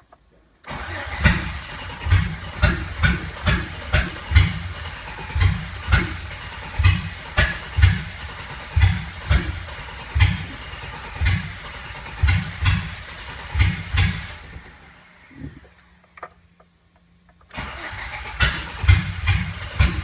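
Chevrolet 4.3 L Vortec V6 being cranked on the starter without catching, with irregular sharp pops from misfires and backfires, two or three a second. The cranking stops about 14 seconds in, leaving a faint steady hum, and starts again about three seconds later. A no-start on a Megasquirt-controlled ignition firing the coil pack.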